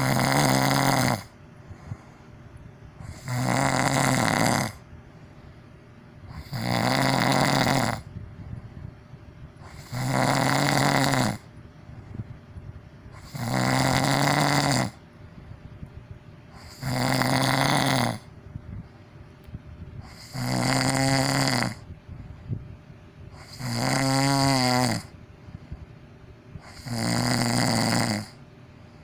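A person snoring loudly in a steady rhythm: nine long snores about three and a half seconds apart, each on a low buzzing pitch, with quieter breaths between them. Two snores in the later part have a fluttering rattle.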